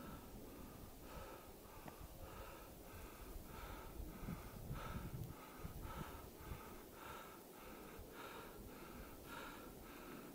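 A hiker breathing hard and fast from the exertion of climbing, faint and regular at about two breaths a second.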